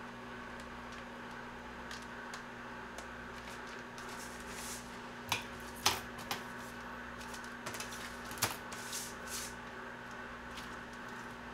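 Dry naengmyeon noodles rustling and crackling as they are pulled apart by hand. Around the middle, several sharp snips and crackles come from a plastic meal-kit packet being cut open with scissors. A steady low hum runs underneath.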